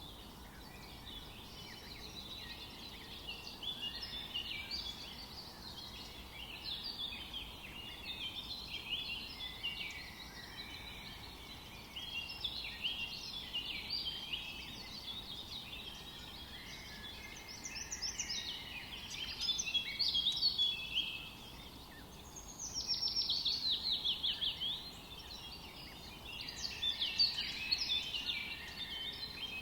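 Many small birds chirping and calling at once, a dense chorus of short high notes. Louder song comes in bursts later on, one of them a fast run of repeated notes.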